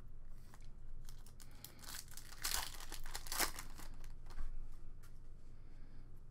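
A foil trading-card pack being torn open and its wrapper crinkled by hand. The loudest tearing comes between about two and three and a half seconds in.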